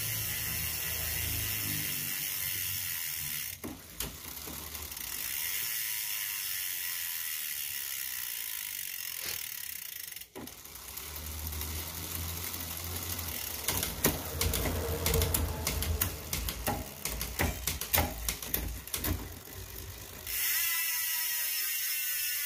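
Bicycle drivetrain running on a stand: the chain runs over a 10-speed cassette and an LTWOO A7 rear derailleur with a steady hiss, and the cassette freehub's pawls click as the rear wheel coasts. Later the ticking turns into separate, irregular clicks.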